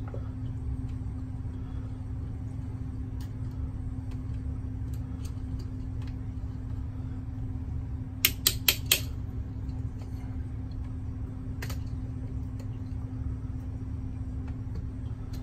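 Small hand tools and a GFCI outlet being handled while the bare copper ground wire is fastened to its green ground screw: scattered light ticks, and four sharp clicks in quick succession a little past halfway, with another one soon after. A steady low hum runs underneath.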